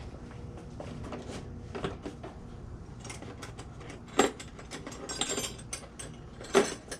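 Small hand-tool and parts noises as a motorcycle throttle housing is taken apart: scattered light clicks and rattles, with two sharp clacks about four and six and a half seconds in.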